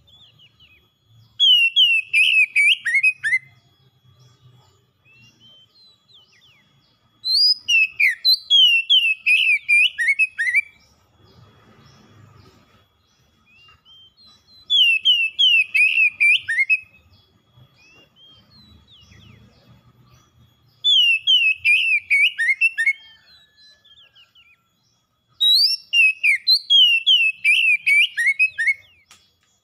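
Oriental magpie-robin singing in full song: five loud phrases, each a quick run of downward-sliding notes lasting two to three seconds, with pauses of a few seconds between.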